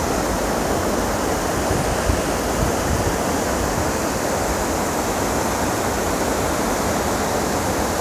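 Rushing water of a fast-flowing mountain stream: a steady, even rush.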